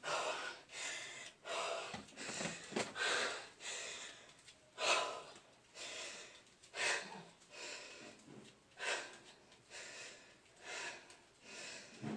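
A person panting heavily with quick gasping breaths, catching their breath from exhaustion after a long set of burpees.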